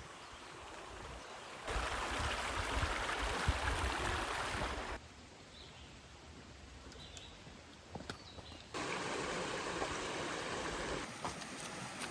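Running water of a stream, heard in two separate stretches of steady rushing, with quieter gaps between that carry faint high chirps. Each change comes suddenly, as from a cut between short clips.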